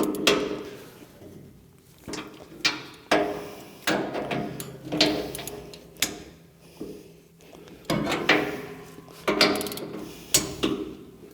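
A 1/2-inch hand ratchet and socket working down a row of plow bolts on a steel snowblower housing. It gives about a dozen sharp metallic clanks that ring briefly off the steel, unevenly spaced a second or so apart, as the bolts are re-snugged by hand after an air ratchet.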